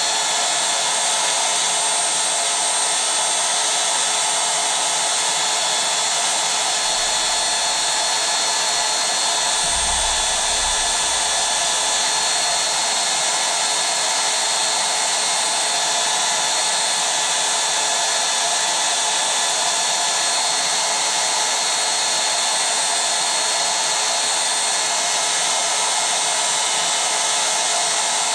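Electric air pump or blower running steadily with a motor whine, inflating an inflatable. A low rumble comes in around ten seconds in.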